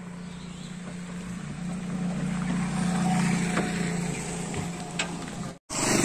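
A vehicle engine running with a steady low hum, swelling louder through the middle seconds and easing off. It breaks off abruptly just before the end.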